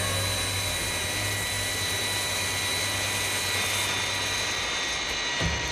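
Jet aircraft engines running steadily in flight: an even rushing noise with a thin high whine over it.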